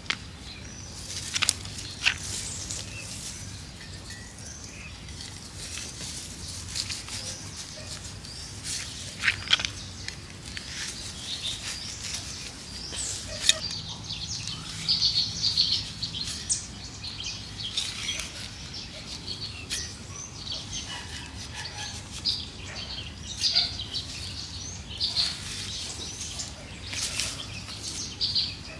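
Small birds chirping in short, scattered calls, with a few sharp knocks and scrapes from a hand trowel digging into clay soil.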